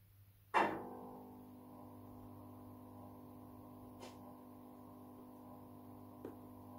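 DCC sound decoder in an OO gauge Accurascale Class 92 model playing the electric locomotive's power-up sounds through its small speaker: a sudden loud clunk about half a second in, then a steady electrical hum of several held tones, with two faint clicks later.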